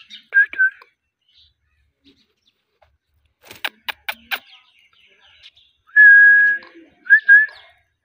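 Indian ringneck parakeet whistling: two short whistles at the start, four sharp clicks about halfway, then one long level whistle and two quick whistles near the end.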